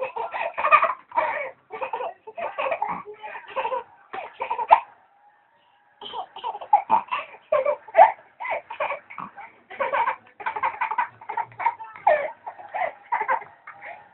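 A two-year-old boy laughing in quick repeated bursts, his laughter broken by hiccups, with a short pause about five seconds in.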